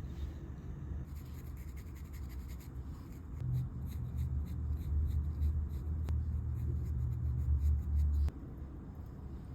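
Scratchy rubbing or scraping strokes on a workpiece over a low hum; the hum grows louder about three seconds in and cuts off suddenly about eight seconds in.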